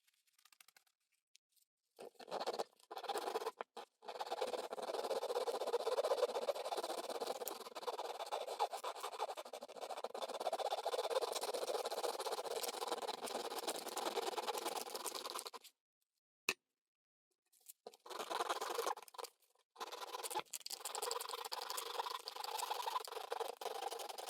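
Hard plastic guitar pickup riser being scraped down by hand, a continuous scraping that starts about two seconds in, stops for about two seconds past the middle, then resumes.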